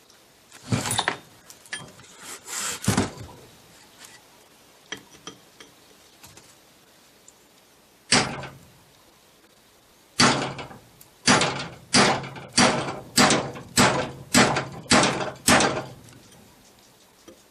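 Hammer striking a steel drift to drive the retaining pin into the reverse idler shaft of a 1958 GM three-speed transmission case, metal on metal with a short ring. A few scattered knocks, then a run of about ten steady blows a little over half a second apart.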